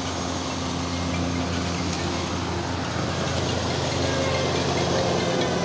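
An engine running steadily at a constant low hum, with no change in speed.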